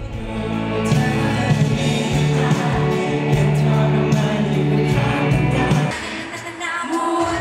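Live pop band playing with sung vocals over electric guitar, drums and a heavy sustained bass; about six seconds in it cuts to a different band's song.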